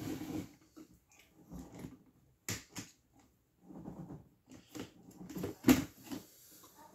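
Objects being handled and rummaged through on a table: irregular clicks and knocks, the sharpest about two and a half and five and a half seconds in, with soft rustling and shuffling between.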